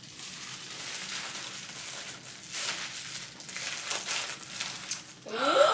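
Crinkly package wrapping rustling and crackling as a mailer is torn open and unwrapped by hand.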